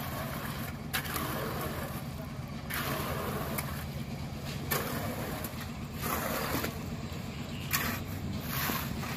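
Concrete mixer's engine running with a steady low hum, while wet concrete is scraped and shovelled in short bursts every second or two.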